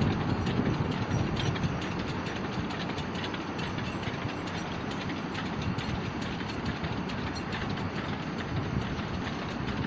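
Long train of loaded sugar cane wagons rolling steadily past, a continuous rumble and rattle with the light clatter of wheels over the rails.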